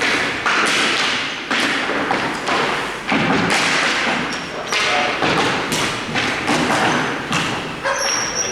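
A run of heavy thuds and knocks, about one a second, each followed by a loud noisy wash.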